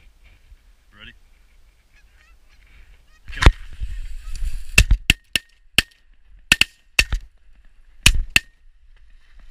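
Canada geese honking faintly overhead, then a volley of shotgun blasts at the flock: about ten sharp shots in five seconds, the first the loudest, with honking between them.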